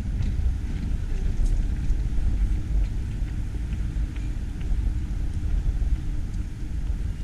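Wind buffeting the microphone, giving a low, uneven rumble, with a faint steady hum underneath.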